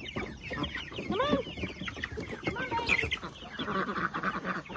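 Mixed flock of chickens, adult hens together with young Red Ranger meat chicks, clucking and calling over one another in many short overlapping calls, busiest in the second half.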